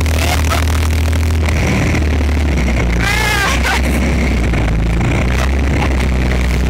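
BMP infantry fighting vehicle's UTD-20 diesel engine running steadily while the tracked vehicle drives, its note shifting about one and a half seconds in. A brief high wavering sound comes about three seconds in.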